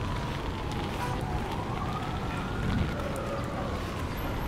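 A siren wailing, its pitch sliding slowly up and back down, over a steady low rumble of street noise.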